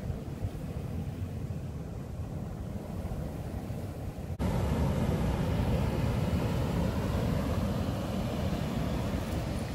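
Wind rumbling on the microphone over the wash of surf along a rocky shore. It turns abruptly louder and fuller at a cut about four seconds in.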